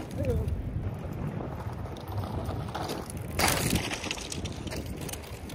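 Wind rumbling on the microphone while a DYU C1 e-bike is ridden over rough ground, with one brief clattering knock about three and a half seconds in.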